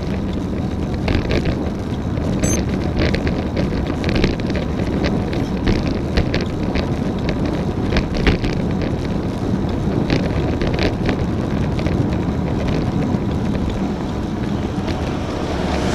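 Mavic Ksyrium Pro Exalith road bike wheels making an abnormal sharp clicking noise about once a second while riding, over steady wind on the microphone and road noise.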